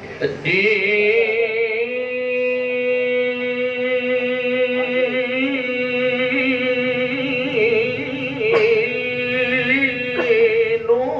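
A male qari reciting the Qur'an in the melodic tilawah style, amplified through a microphone, holding one long high note for about ten seconds with a slight warble in places.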